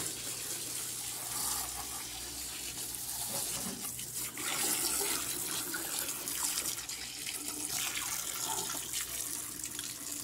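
Garden hose spraying water onto a window air conditioner's finned coil and into its metal base, a steady hiss and splash as the cleaning product is rinsed off.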